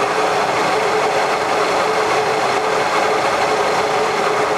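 Manual lathe running at about 720 rpm while its tool takes a light facing finish pass across the end of the spinning part: a steady machine hum with a constant tone.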